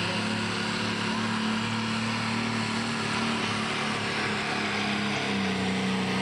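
Pro stock pulling tractor's turbocharged diesel engine running flat out under load as it drags the weight sled, a loud steady drone. Its pitch drops a little about five seconds in.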